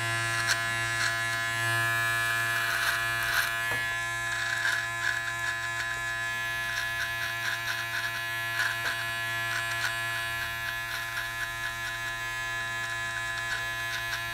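Powertec TR-758 electric beard trimmer running with a steady buzz, with irregular crackles as its blades cut through beard hair around the chin and moustache.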